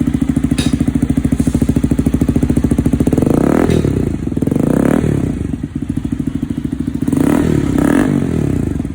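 Motorcycle engine running through an aftermarket full exhaust fitted with a silencer insert. It idles steadily with an even pulse, then is revved up and let fall back about three times.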